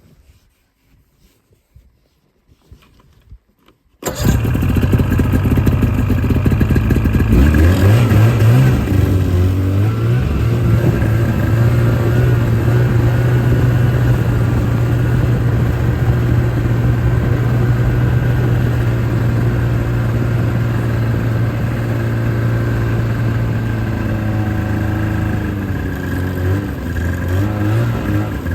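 A vehicle engine starts abruptly about four seconds in. It revs up over the next few seconds, runs at a steady speed for most of the time, and varies in pitch near the end.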